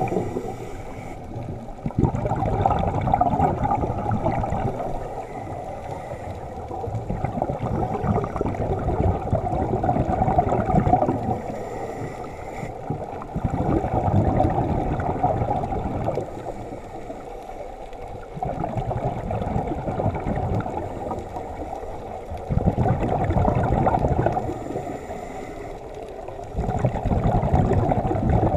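Underwater recording of scuba divers' exhaled regulator bubbles gurgling, swelling in surges every four to five seconds with a softer water rush between them.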